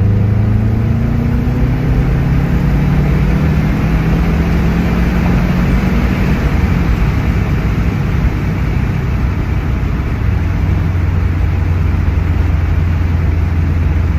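Subaru WRX's flat-four engine running steadily with a low hum. Its pitch rises over the first couple of seconds, then holds, and shifts slightly about ten seconds in.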